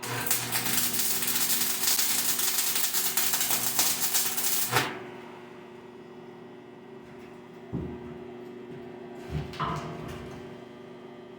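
Angle grinder grinding steel for about five seconds, a loud hiss that stops abruptly, followed by a couple of knocks of metal being handled.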